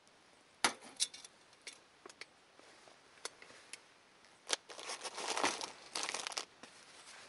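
Handling noise at close range: a few sharp clicks and knocks, then about two seconds of crinkling, rustling and tearing, like packaging or plastic being worked by hand.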